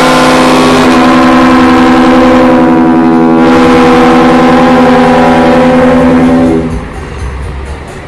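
A bus's roof-mounted trio of ship-style trumpet air horns (klakson kapal) blowing one long, very loud chord of several tones, which shifts slightly about a second in and cuts off about seven seconds in.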